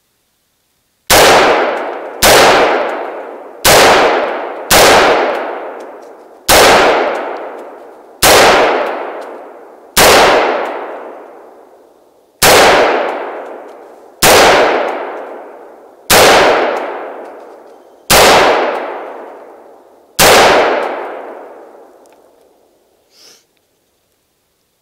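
Century Arms AR-15 (M16A1 clone) rifle firing twelve single semi-automatic shots, spaced about one to two and a half seconds apart, each with a long ringing echo. A faint short click comes near the end.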